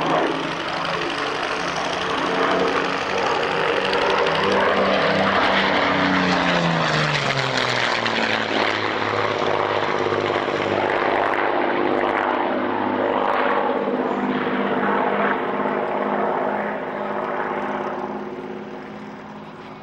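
Twin-engined propeller aircraft flying past low with its engines running hard. The engine note drops in pitch about six to eight seconds in as it passes, then fades near the end as it climbs away.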